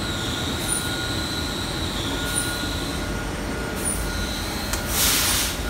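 Machinery of a digital tile-glazing line running, with the conveyor belt moving: a steady mechanical din with thin steady whining tones and a faint high blip about every second and a half. A short, loud hiss comes about five seconds in.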